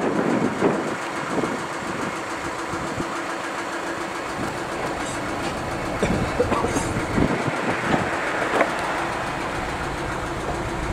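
Narrowboat's diesel engine idling steadily, with a few sharper knocks between about six and nine seconds in.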